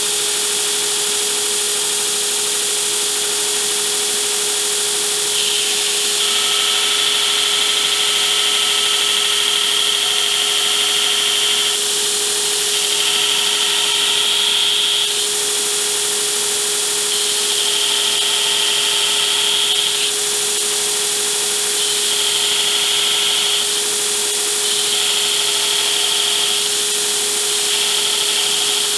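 A power tool's motor running with a steady hum while it cuts metal along a milled line. A higher grinding hiss from the cut comes and goes in stretches of a few seconds, about six times.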